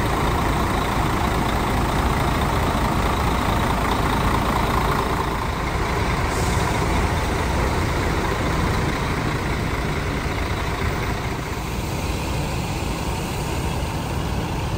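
Diesel bus engines idling, a steady unbroken rumble that eases slightly about eleven seconds in.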